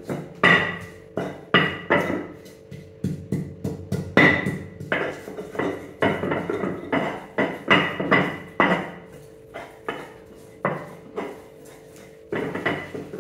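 Kitchen knife chopping mustard greens on a cutting board, in irregular strokes about two a second, each with a short ringing. The chopping thins out to a few strokes near the end.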